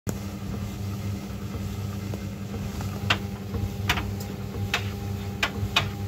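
Tumble dryer running with a steady motor hum, a teddy bear tumbling in the drum. From about halfway, sharp light knocks come a little more than once a second as the load turns.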